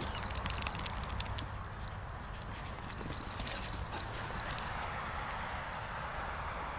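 Footsteps on sandy, gritty ground: a run of sharp crunches and clicks over the first few seconds, thinning out after about four and a half seconds.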